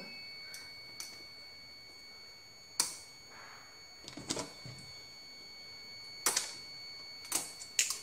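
Scattered light clicks and taps from a small plastic switch and its wires being handled, at irregular intervals, with a few in quick succession near the end.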